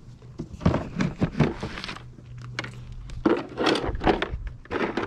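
Handling noises: several irregular bursts of clattering and rustling, with things being moved and set down, over a steady low hum.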